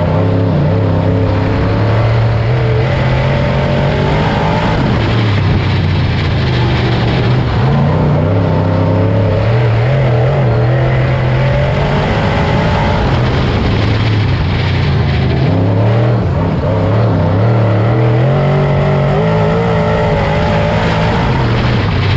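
Dirt late model race car's V8 engine running hard under racing, its pitch rising and falling every few seconds as the throttle opens and closes through the corners.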